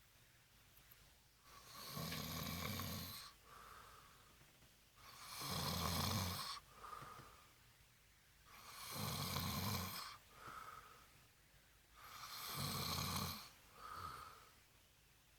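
A man snoring heavily in a drunken sleep: four loud snores about three and a half seconds apart, each followed by a softer breath out.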